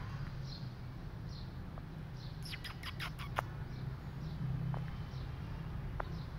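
Small birds chirping: short, high, falling chirps repeated every second or so, with a quick run of sharp chirps in the middle, over a steady low background rumble.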